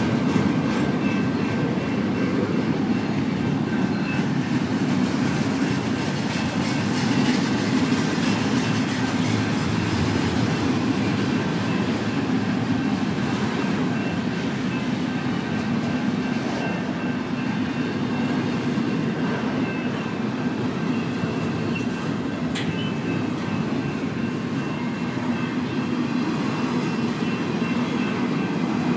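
Double-stack intermodal container train rolling past at steady speed: a continuous rumble of loaded well cars' wheels on the rails.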